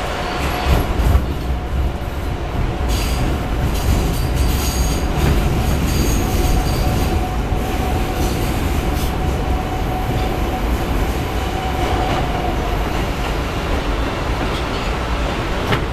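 R160B Siemens subway car running at speed, heard from inside the car: a steady rumble of wheels on the rails with scattered rattles. A thin wheel squeal holds from about six to thirteen seconds in.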